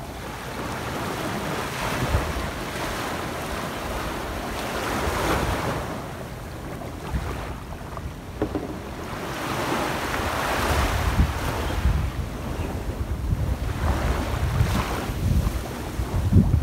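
Small sea waves washing up a sandy beach and draining back, in slow surges that swell and fade every few seconds. Wind buffets the microphone with a low, gusty rumble.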